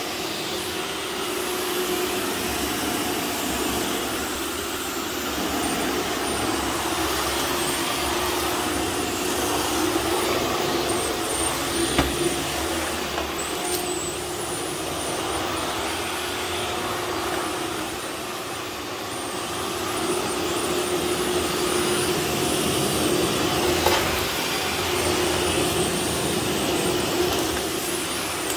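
Bosch Athlet cordless stick vacuum running steadily as it is pushed over a hard floor: a constant hum under a rushing air noise, with a high wavering whine above it. Two brief knocks, about halfway through and near the end.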